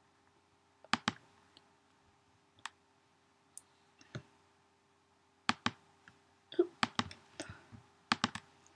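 Sharp clicks of a computer mouse button, scattered and often two in quick succession, over a faint steady hum.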